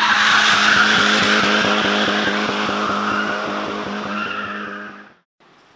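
Saab 900 Turbo doing a burnout: the engine is held at high revs with a rapid pulsing while the tyres squeal. It cuts off abruptly about five seconds in, leaving quiet room tone.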